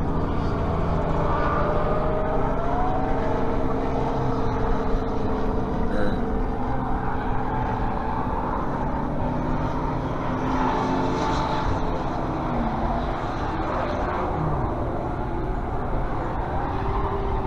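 Car engines running in traffic: a steady low rumble, with engine pitch rising and falling now and then as cars move.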